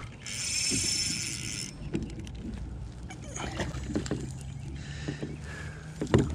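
Fishing reel's drag buzzing for about a second and a half as a heavy fish takes line, followed by scattered knocks and clicks and a sharp knock near the end.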